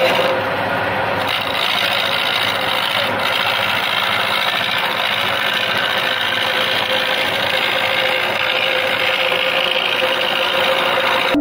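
Wood lathe running steadily while a hand-held turning chisel cuts into the spinning wooden blank: a steady motor hum under the continuous scraping hiss of the cut.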